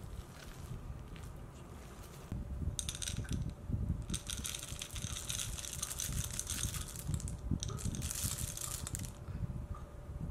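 A silicone spatula stirs thick pumpkin loaf batter in a glass bowl. About three seconds in, chocolate chips are poured from a small wooden bowl and clatter into the batter for about six seconds, a dense run of small clicks.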